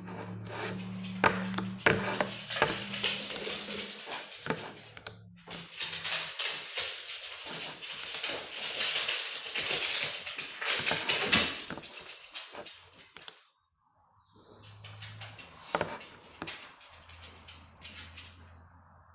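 Irregular clatter, clicks and knocks, dense for the first dozen seconds and then sparser after a brief drop about two-thirds of the way in. A low hum runs under parts of it.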